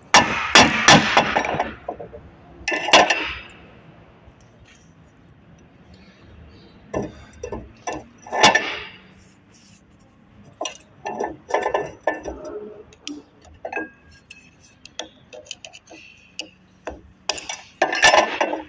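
Metal hydraulic-motor parts clinking and knocking as they are handled and worked on over a bench vise during a shaft-seal change, in several short bursts with pauses between.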